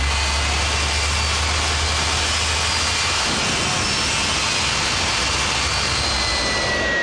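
Jet engine of a jet-powered big rig running: a loud, even rushing noise with a thin high whine on top, and a deep rumble that eases about three seconds in.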